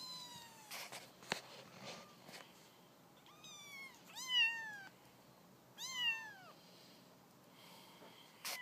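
Young kitten mewing: about five high-pitched cries that each fall in pitch, the loudest about four seconds in. A single sharp click a little after one second.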